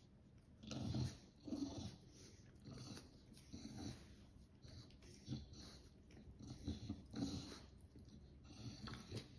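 Pug puppy and English bulldog breathing noisily through their short snouts at close range, in irregular bursts about every second.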